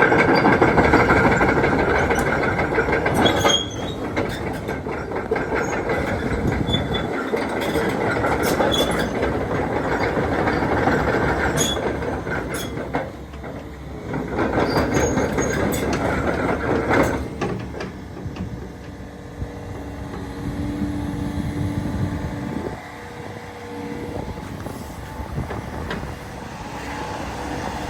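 Komatsu PC490LC-11 hydraulic excavator running, with loud metallic clanking and squealing. After about 17 seconds it settles to a quieter, steadier hum.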